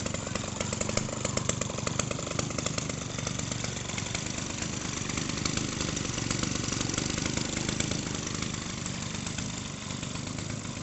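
Model aircraft's MDR 55cc two-stroke gasoline engine running continuously, with rapid, prominent firing pulses in the first few seconds before settling to a steadier sound.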